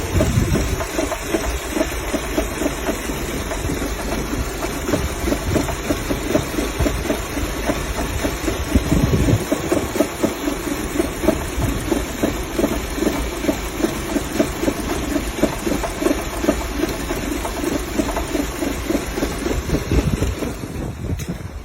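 An engine running at idle, with a rapid, pulsing beat over a steady hiss.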